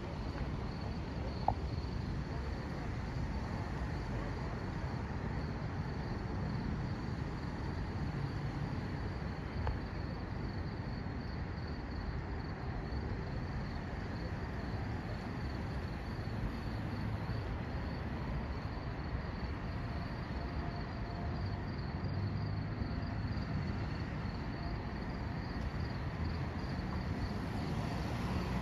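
Insects chirping in a steady, evenly pulsing high trill, over a constant low background rumble.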